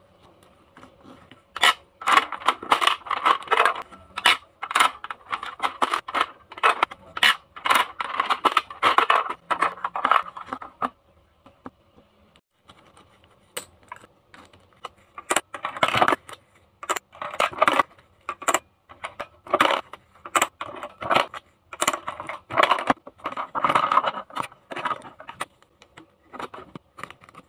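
Toy plastic vending machine being played with: coins dropped in, buttons clicked and plastic toy drink bottles clattering down and being handled, a quick run of clicks and rattles with a lull partway through.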